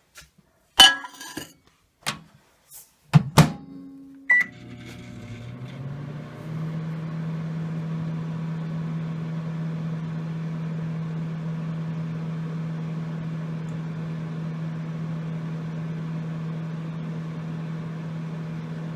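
Microwave oven being started: a few clicks and knocks as the door is handled, a single keypad beep about four seconds in, then a steady hum that rises slightly in pitch over the first couple of seconds as it comes up to speed.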